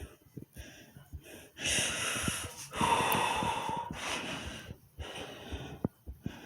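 A person breathing hard, close to the microphone. A few quick short breaths come first, then two long loud breaths from about a second and a half in, the second with a faint whistle. Shorter breaths follow.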